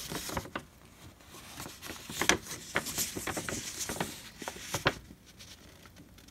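Paper instruction sheet rustling and crackling as it is handled and shifted, a run of sharp crinkles that stops about five seconds in.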